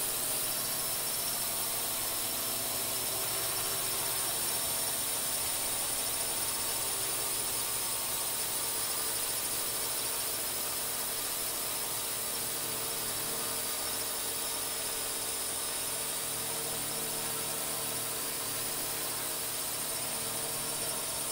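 Quadcopter drone motors and propellers running steadily, a high whine made of several steady tones over a hiss.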